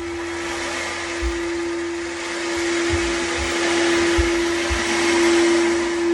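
Ocean drum beads rolling in a hiss that swells and fades, over a singing bowl held ringing in one steady tone that grows louder toward the end. Several dull low thumps come from children running on the floor above.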